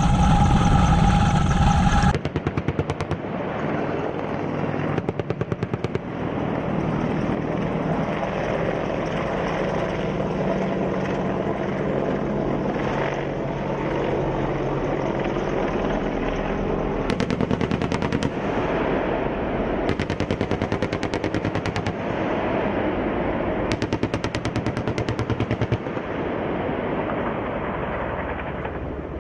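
AH-64D Apache Longbow helicopter's twin turboshaft engines and rotor. For the first two seconds it is close up, a loud high whine over heavy rotor noise. After a cut it is in flight, with a rapid, rhythmic pulsing from the rotor that sharpens in several bursts of a second or two.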